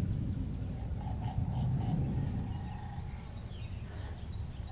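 Outdoor field ambience: a steady low rumble of wind on the microphone with scattered short, faint bird chirps.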